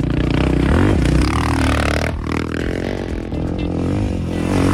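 Off-road motorcycle engines revving up and dropping off as dirt bikes ride over a dirt jump. The sound breaks off abruptly about two seconds in and another bike's engine follows, revving the same way.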